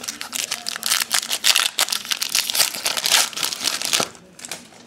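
Foil wrapper of a 2012 Topps baseball card pack being opened and crinkled by hand: a dense, crackly rustle that stops about four seconds in.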